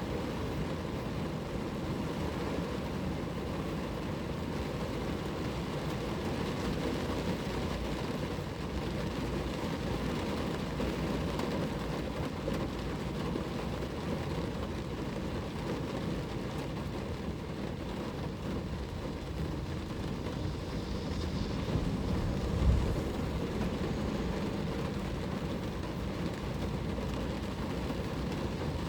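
Steady rain falling on a car, a dense low-pitched rush of noise that does not let up. One short, dull thump about three-quarters of the way through.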